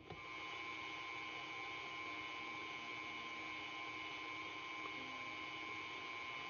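KitchenAid Artisan stand mixer's motor running steadily at speed 4, mixing a thick batter, with a steady whine.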